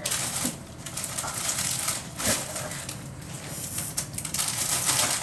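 Plastic food packaging crinkling and rustling in irregular bursts as items are rummaged through and pulled out.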